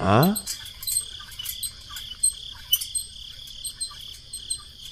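Crickets chirping steadily in a high, even trill with rapid faint ticks. At the very start a brief voice slides quickly down in pitch.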